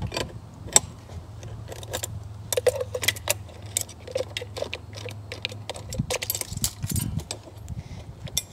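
Repeated light metal clinks and taps of a wrench and metal hose fitting as the airless hose is unscrewed from the paint sprayer's pump outlet. A steady low hum runs beneath them and stops about six seconds in.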